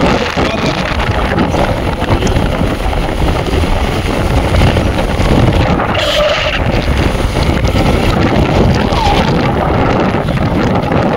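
Heavy wind noise on the microphone over the steady noise of a moving vehicle.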